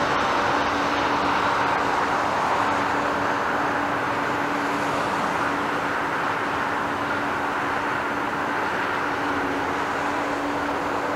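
Jet engines of an Airbus A320-family airliner touching down and rolling out along the runway: a steady rushing roar with a low steady hum, easing slightly after the first few seconds.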